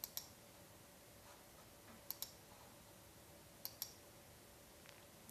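Computer mouse clicking: three quick pairs of sharp clicks, about two seconds apart, over faint room tone.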